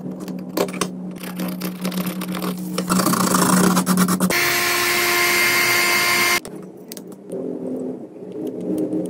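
Hand-repair sounds on a mobile phone's circuit board: small clicks and scratches of tools, with a brush scrubbing the board about three seconds in. This is followed by a loud, steady hiss with a thin whine that runs for about two seconds and cuts off suddenly.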